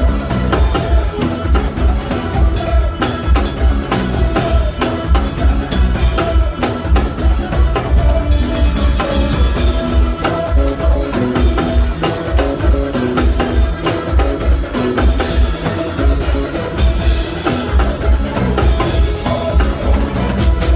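Live band playing, with drum kit and a heavy bass line driving a steady beat.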